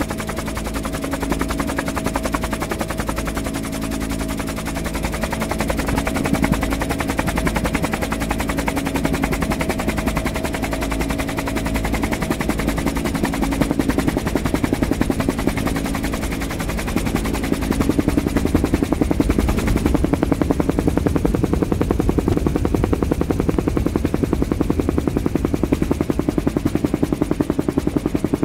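Helicopter noise from inside the cabin: a fast, even rotor beat over a steady engine hum, growing somewhat louder about two-thirds of the way through.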